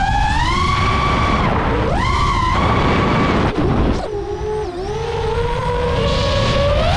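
DJI FPV drone's motors and propellers whining in flight, the pitch rising and falling with the throttle. The whine drops and thins briefly about four seconds in, then climbs back.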